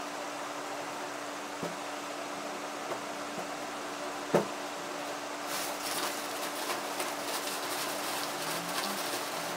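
Clothes being handled over a steady room hum: a few light knocks and one sharper knock about four seconds in, then a garment's fabric rustling and flapping as it is shaken out and moved about.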